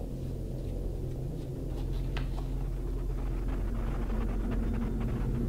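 A steady low rumbling hum that slowly grows louder, with faint rustles and light clicks of paper as the pages of a small book are opened and leafed through.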